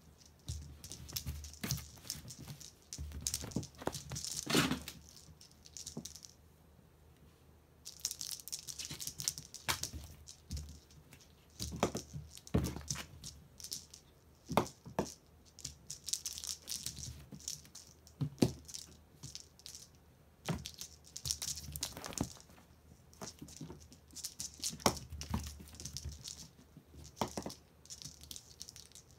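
A kitten playing with a feather wand toy on a woven rug: irregular bursts of scratchy rustling from its claws and the toy, with occasional sharp thumps as it pounces and lands.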